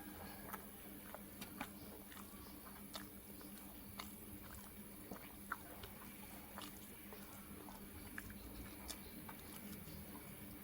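Close-up eating sounds: chewing with scattered small clicks and crunches, over a faint steady hum.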